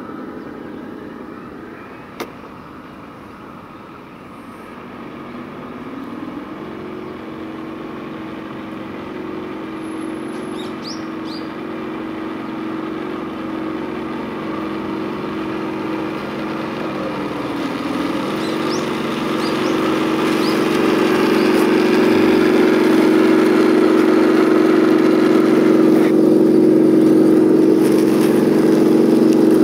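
Tamiya 1/16 Leopard 2A6 radio-controlled tank driving: a steady mechanical hum that rises in pitch a few seconds in as it picks up speed, dips briefly about two-thirds of the way through, and grows louder as the tank comes closer. A single sharp click comes about two seconds in.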